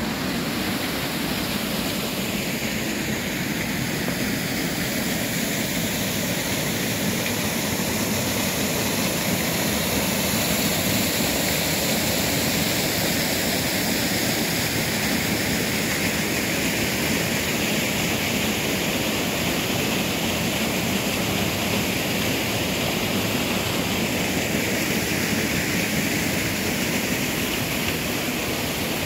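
Steady rushing of river water: a loud, even hiss that holds without a break.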